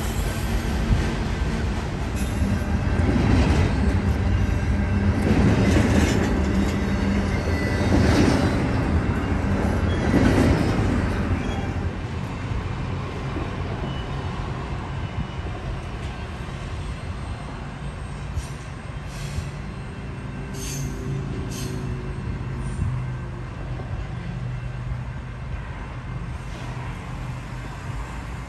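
Freight train of auto-rack and double-stack cars rolling past, wheels clattering over the rails, with a louder surge about every two seconds for the first ten seconds. It then settles into a steadier rumble, with a few brief high wheel squeals around the middle.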